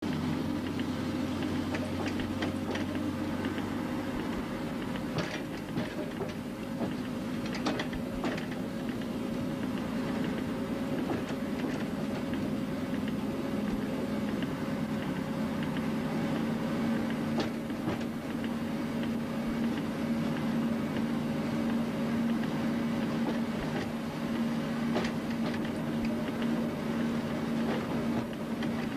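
Train running slowly, heard from its front window: a steady mechanical drone whose pitch shifts a little twice, with scattered clicks and knocks as the wheels cross the points.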